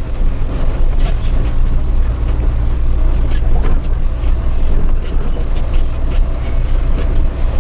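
Isuzu Giga truck's diesel engine and drivetrain as heard inside the moving cab: a steady low rumble with a faint steady whine above it, and light rattling clicks.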